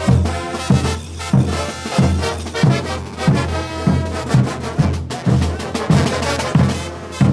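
Bolivian brass band playing: massed brass horns over a steady bass-drum beat, about three beats every two seconds.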